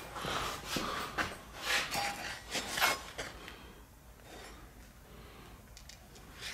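Handling noise as a welded steel plate is moved and set down close to the camera: a few brief rustling scrapes over the first three seconds, then quieter with faint ticks.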